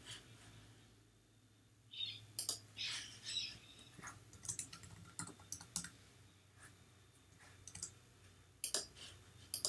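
Computer keyboard keys clicking in short, irregular runs as a line of HTML code is typed, starting about two seconds in.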